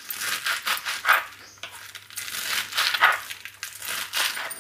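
Knife chopping through a folded bunch of mustard greens and spinach leaves on a cutting board, giving an irregular run of crisp crunching cuts.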